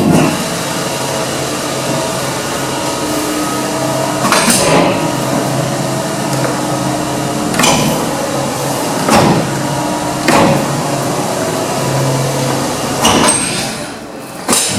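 Platform lift running: a steady motor hum throughout, broken by several sharp knocks spread unevenly through it.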